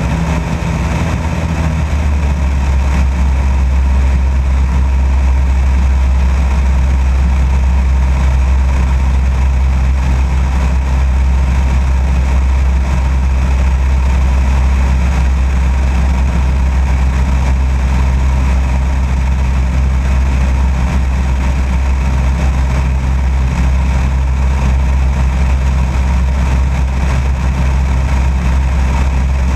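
Light aircraft's engine and propeller droning steadily in flight, heard from a camera mounted outside under the fuselage, with airflow rushing past it. The engine note shifts slightly about two seconds in, then holds steady.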